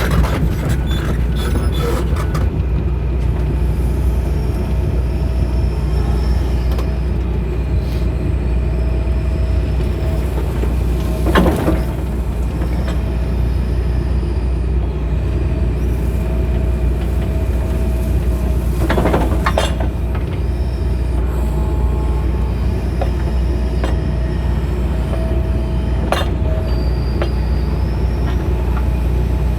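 John Deere excavator's diesel engine running steadily under digging work, with a faint whine that comes and goes. A couple of brief knocks stand out, about a third and two thirds of the way through.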